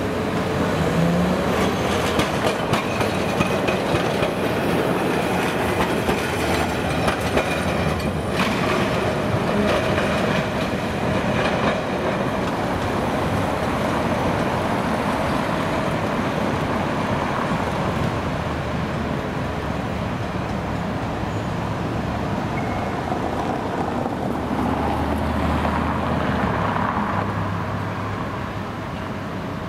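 Vintage Peter Witt tram from the 1920s running on street track, its wheels clacking repeatedly over rail joints and crossings over a steady rumble. Near the end a low rumble swells as a tram comes closer.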